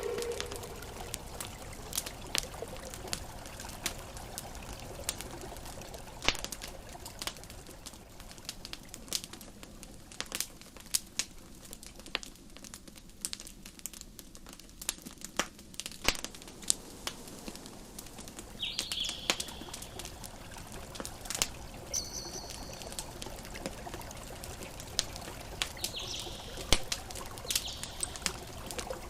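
Campfire crackling, with many sharp irregular pops and snaps over a steady wash of gentle ocean waves. A few short high chirps sound about two-thirds of the way through.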